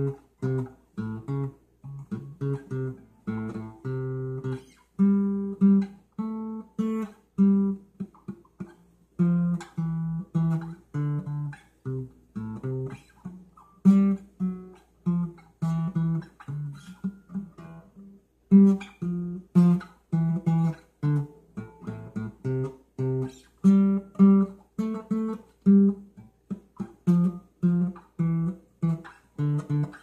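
Acoustic guitar music: single notes and chords picked one after another at a steady, unhurried pace, each note ringing and dying away, with a short pause about eighteen seconds in.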